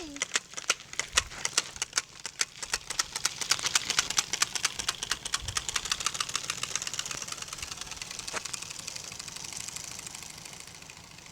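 Bicycle rigged to sound like a motorbike, an attachment flicking against the spinning spokes: a rapid clicking rattle that speeds up as the bike gathers pace, then fades as it rides away.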